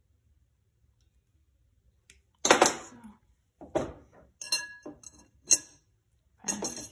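Glass vase clinking and briefly ringing as a bent cut-out leaf profile is knocked against its rim while being fitted, about five clinks starting some two seconds in, the first the loudest.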